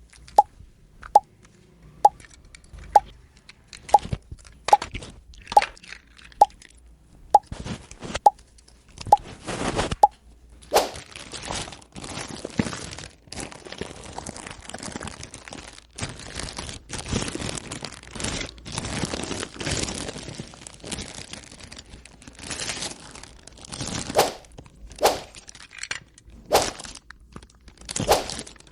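Toy unboxing handling: a steady series of sharp clicks or taps, about one a second, as small toy pieces are handled and set down. Then a long stretch of crinkling, crunching handling of the packaging, and a few more sharp taps near the end.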